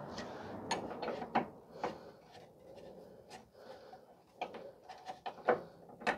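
Scattered clicks and light metallic knocks of a hand wrench working the nut on a pickup's rear shock absorber mount. A soft rustling haze comes first, for about a second and a half.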